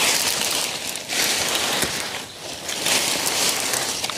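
Lablab bean vines and leaves rustling as they are pulled and dragged down from a trellis by hand, in about four surges.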